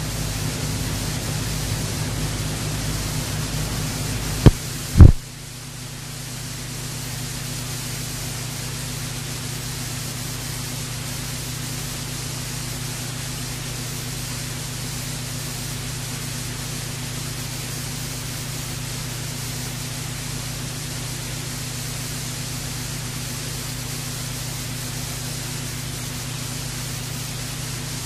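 Blank stretch of a cassette tape playing: steady tape hiss with a low electrical hum, broken about four and a half and five seconds in by two loud clicks.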